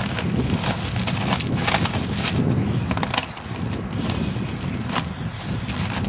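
Aerosol spray-paint can hissing in short repeated bursts as paint goes onto the side of a freight car, over a steady low rumble.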